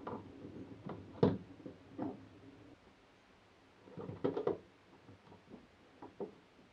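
Scattered clicks and knocks of a screwdriver and hands working on a wall-mounted electrical box. The sharpest click comes about a second in, and a short cluster of knocks follows around four seconds in.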